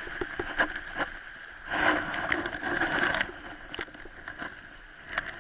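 Sea water washing on a beach, with scattered sharp clicks and a louder rush of water about two seconds in that lasts over a second.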